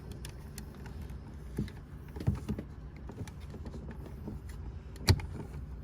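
Scattered small clicks and light knocks as wiring connectors are released and pulled off a Honda Civic door-panel piece, with a sharper click about five seconds in.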